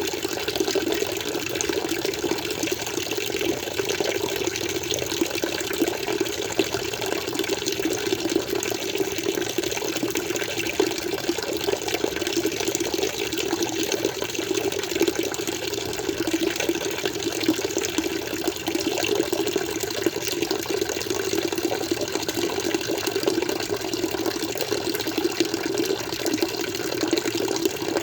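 Flowing water, a steady, even rush with no pauses or changes.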